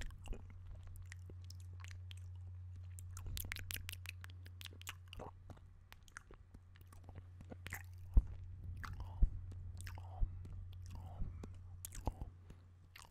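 Wet mouth sounds made right at a microphone: quick, irregular clicks and smacks of lips and tongue, with a few louder pops about two-thirds of the way through. A steady low hum runs underneath.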